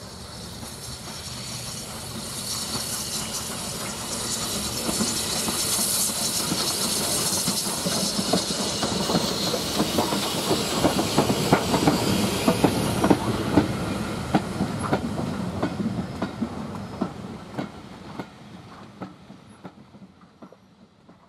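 Steam train passing close by: the locomotive's steam hiss builds as it approaches. Then the coach wheels clatter over the rail joints in a long run of clicks that fade away near the end.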